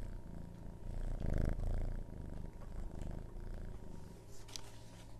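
Domestic cat purring with a small microphone held right up to it, so the purr is heard close-up; it swells to its loudest about one to two seconds in, then carries on steadily.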